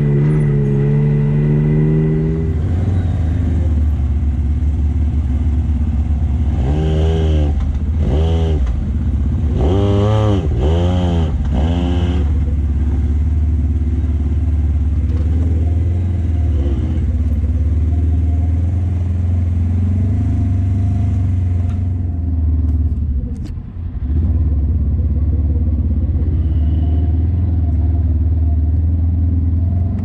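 Side-by-side UTV engine running as it drives a dirt trail, a steady low drone with a few quick revs that rise and fall in pitch a quarter to halfway through, and a brief drop off the throttle about three quarters of the way in.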